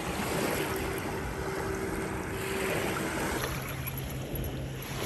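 Small waves washing on a sandy shore, with wind on the microphone and a faint steady hum underneath.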